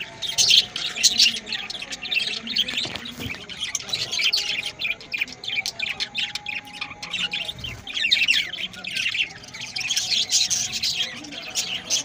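A flock of budgerigars chattering and chirping continuously, swelling and fading in waves.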